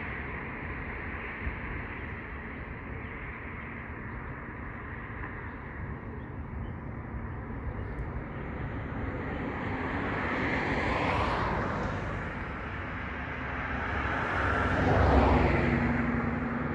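Steady low rumble of vehicles, with two passing close by, one about eleven seconds in and a louder one near the end, its pitch falling as it goes by.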